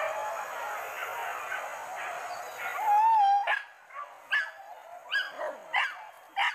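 Hunting dogs on a wild boar hunt baying: a tangle of many dogs yelping over one another, then a loud drawn-out whine about three seconds in, followed by five sharp yelps in quick succession from one dog.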